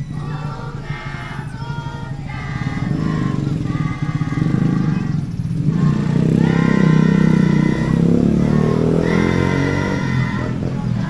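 A group of schoolchildren singing a slow song together in unison, held notes about a second long. An engine rumbles underneath, loudest about six to nine seconds in.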